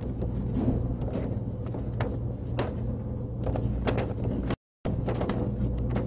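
Sheets of paper rustling and being handled as handouts are passed out, heard as short scattered rustles over a steady low hum. The sound cuts out completely for a moment about four and a half seconds in.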